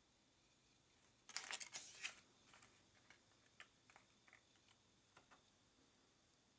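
Thin clear plastic blister packaging crinkling and clicking as a lollipop is pressed back into its tray: a burst of crackles about a second in, then a few scattered clicks.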